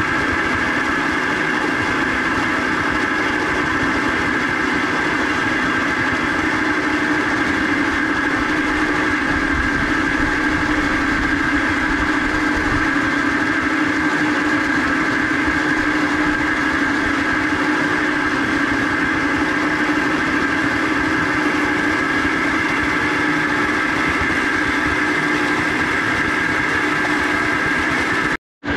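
Homemade water wheel turning steadily in its channel, driving a belt-and-pulley generator: a continuous mechanical whir with a steady hum over the rush of water.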